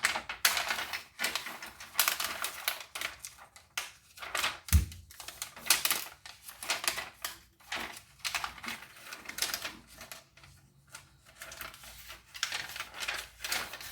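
Irregular clicking and clattering of the hard plastic parts of a taken-apart computer keyboard being handled, with one dull knock about five seconds in.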